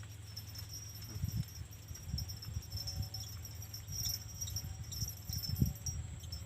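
Insects chirping in steady high-pitched pulses, over a low rumble with irregular soft knocks.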